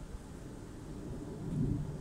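Wind buffeting the microphone: an irregular low rumble that swells in a gust about one and a half seconds in.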